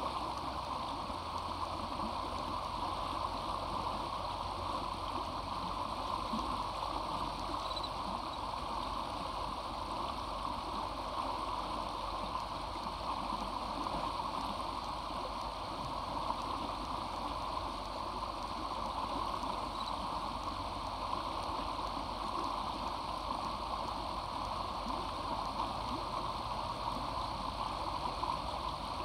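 Floodwater of a swollen, muddy creek rushing steadily over and around fallen tree trunks.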